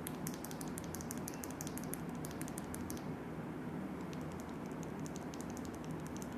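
A bare TU mechanical keyboard switch pressed repeatedly between the fingers, giving quick, faint, sharp clicks, rapid at first and thinning out after about three seconds.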